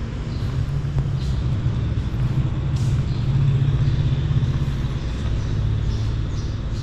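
A steady low rumble that holds at an even level throughout.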